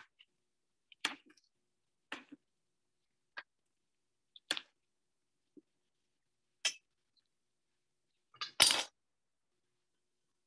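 Scattered knocks and clicks of kitchen prep as another portobello mushroom is cut and put into the mixing bowl: about six separate short hits a second or two apart, the loudest near the end.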